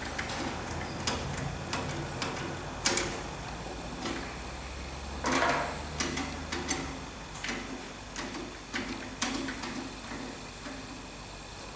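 Light, irregular metallic clicks and taps of hand tools and small parts being fitted and adjusted on a vintage tractor's throttle linkage, with a brief scraping rustle about five seconds in.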